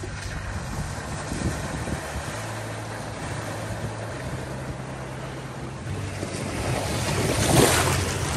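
A pickup truck fording a shallow creek: the engine runs low and steady while the tyres push through the water with a rushing, splashing wash. It grows louder as the truck nears and is loudest about seven and a half seconds in.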